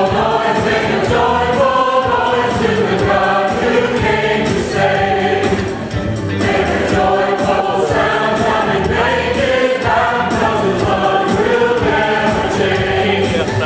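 Church choir of men and women singing a gospel song together, with a short break between phrases about six seconds in.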